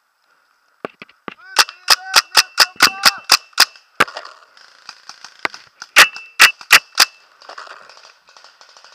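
Paintball marker firing: a fast string of about a dozen sharp pops from about one and a half to four seconds in, then four more loud pops about a second apart later on, with fainter popping after.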